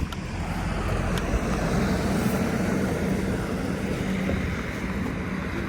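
A vehicle passing on a street: a steady rumble and hiss that swells slightly and then eases off, with a faint low hum.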